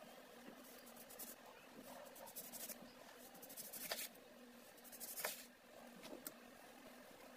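Kitchen knife slicing a lemon on a wooden cutting board: soft cutting scrapes with a few sharp taps of the blade meeting the board, the loudest about four and five seconds in.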